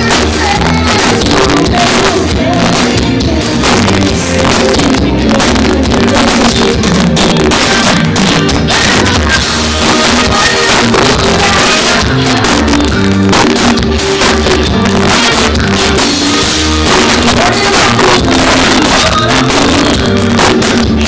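Loud live band playing brega: a woman sings lead over electric guitar, bass and drum kit, with a steady bass beat underneath.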